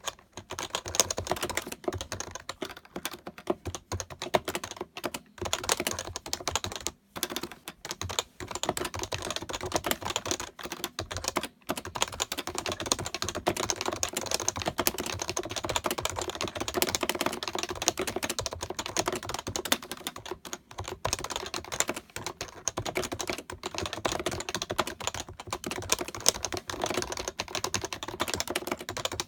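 Fast, continuous typing on a Happy Hacking Keyboard (HHKB): a dense stream of key clacks, with brief pauses about 7 and 11½ seconds in.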